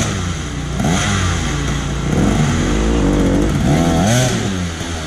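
Enduro motorcycle engine revved in several separate bursts, each rising and falling in pitch, over a steady lower engine note, as the bike works on a steep climb.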